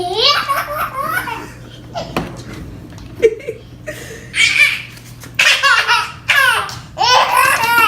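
A baby laughing in repeated bursts of giggles and belly laughs, with a sharp click a little past three seconds.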